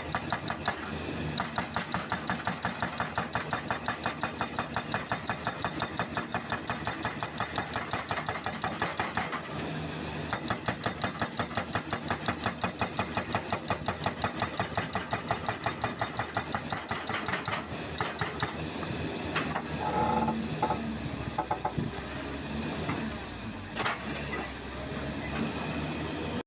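Hydraulic breaker on a CAT 320C excavator hammering concrete in rapid, evenly spaced blows over the excavator's engine. The blows stop briefly about nine seconds in, then start again. In the last third they give way to irregular knocks.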